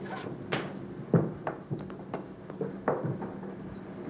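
A series of irregular knocks and thumps, about seven in all, the loudest about a second in, over a steady low hum.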